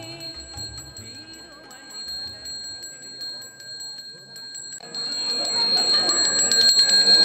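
Balinese priest's bronze handbell (genta) rung continuously, its clapper striking rapidly over a steady high ring, with faint chanting early on. About five seconds in, a louder wash of voices and noise joins and the bell rings louder.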